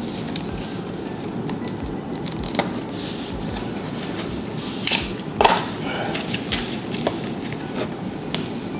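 Cardboard packaging of an Apple Watch band box being opened and handled by hand: scattered rustles and small sharp clicks over a steady low background noise.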